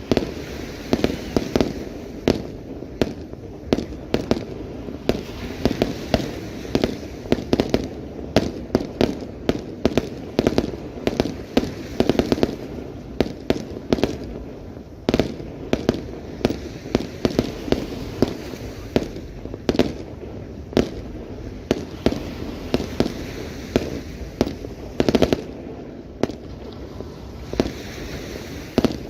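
Fireworks display: a rapid, continuous series of bangs and pops, several a second, over a steady crackle.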